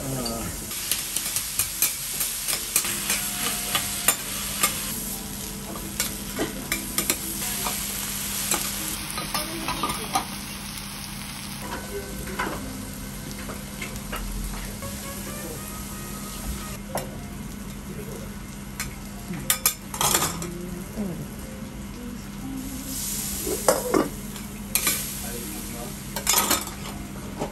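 Hiroshima-style okonomiyaki frying on a teppan iron griddle: a steady sizzle, with metal spatulas scraping and tapping against the hot plate, the sharpest scrapes about two-thirds of the way through and near the end.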